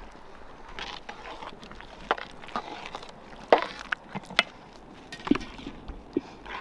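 Scattered light knocks and clicks, about eight of them, irregularly spaced, over a faint steady background hiss.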